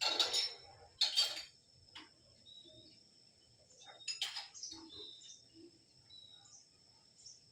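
Birds chirping, with a few short harsh calls among brief high chirps, over a steady high-pitched tone.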